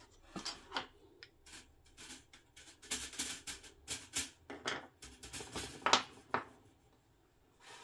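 A run of irregular clicks, taps and rustles of small hard objects being handled, the loudest a sharp click just before six seconds in, then it goes quiet.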